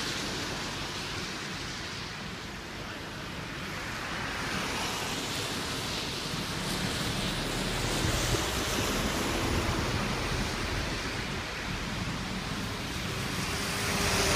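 Road traffic driving past on a wet road: a steady rush of tyre spray and hiss, swelling as a lorry goes by about halfway through.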